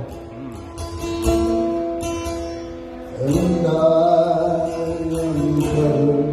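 Slow worship music: sustained chords with plucked string notes, swelling into a fuller held chord about halfway through.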